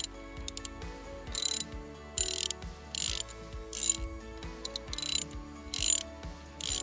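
A ratchet wrench being worked in short repeated strokes, a burst of ratcheting clicks about every second, as a fitting is tightened, over faint background music.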